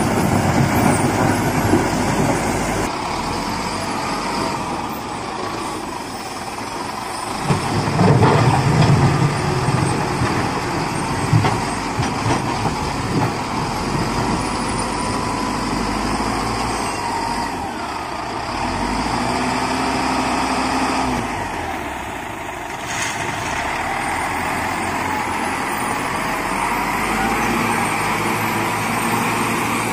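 Heavy truck engine running steadily, with louder swells about eight and eleven seconds in.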